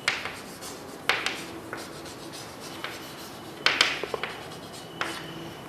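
Writing on a board: a series of irregular short scratching strokes.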